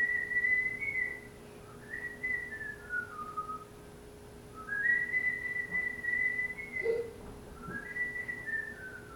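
Pet parrot whistling a short tune over and over: a phrase that steps up and holds alternates with one that steps down, four phrases in all, with a small knock about seven seconds in.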